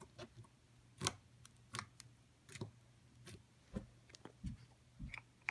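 Slime being squeezed and poked by hand, giving a series of sharp clicks and soft pops, about one every half second to second.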